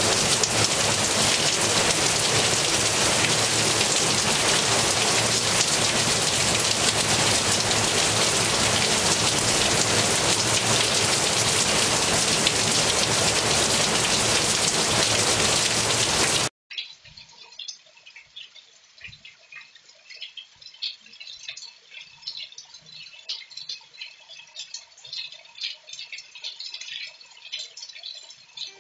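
Heavy rain pouring down in a steady, loud hiss, with water streaming off a roof edge; it cuts off abruptly about sixteen seconds in. A much quieter stretch follows, with faint scattered high chirps and clicks.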